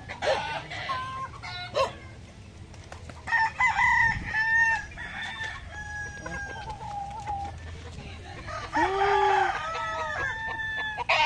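Gamecock roosters crowing, several long crows one after another.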